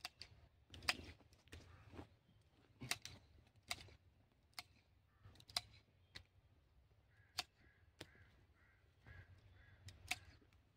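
Hand pruning secateurs snipping twigs and side shoots off a young apple tree: sharp single clicks, about nine of them at irregular gaps of a second or so.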